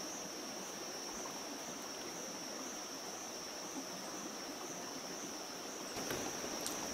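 A stream flowing over rocks, with insects buzzing on one steady high-pitched note. A few faint clicks near the end.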